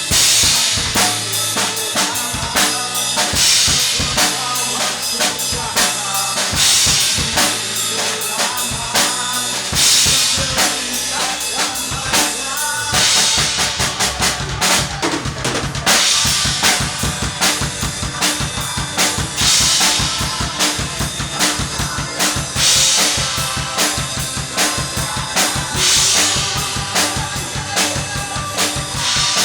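Instrumental band music led by a drum kit: a steady beat of kick and snare strokes with a cymbal crash about every three seconds, over a bass line. About halfway through the low part changes pattern.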